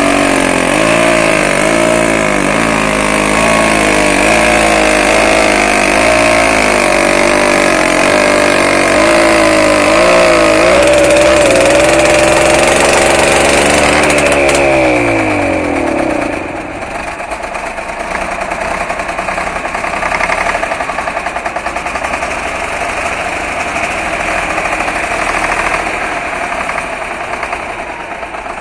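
A-01 six-cylinder tractor diesel running just after a hard start, its pitch wavering unevenly. About fifteen seconds in, a higher note winds down and falls away, leaving the diesel running lower and quieter with a steady beat.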